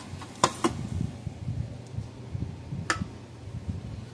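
Three sharp clicks from a Parmak Solar Pak 12 electric fence charger just switched on from a 13-volt bench supply: two close together about half a second in, one near three seconds. It is starting to pulse, showing the unit works on good power.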